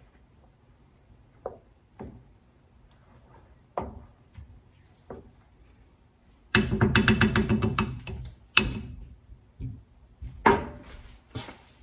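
Wooden spoon knocking against the side of a stainless steel stockpot while thick soup is stirred: a few light knocks, then a loud rapid rattling clatter for about a second and a half a little past halfway, and a sharp ringing clink shortly after.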